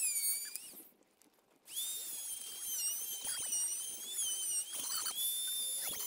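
Dremel rotary tool spinning at high speed, milling away the plastic body of a seized ABS wheel speed sensor. Its high whine wavers in pitch as the bit bites. It breaks off for under a second about a second in, then runs on.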